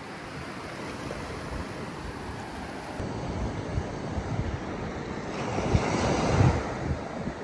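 Ocean surf washing onto the beach, with wind buffeting the microphone; the wash swells to its loudest about six seconds in.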